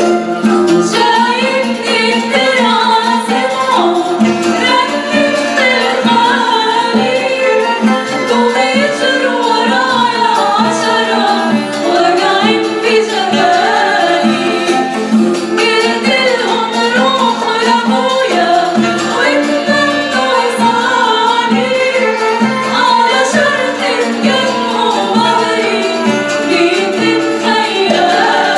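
Mixed choir of men's and women's voices singing an Arabic song, accompanied by a small Arabic ensemble with violin and oud.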